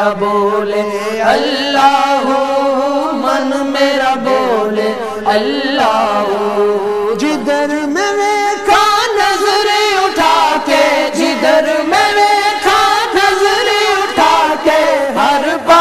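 Male voices chanting a hamd, an Islamic devotional song in praise of Allah, with several sustained, gliding voice lines layered over one another.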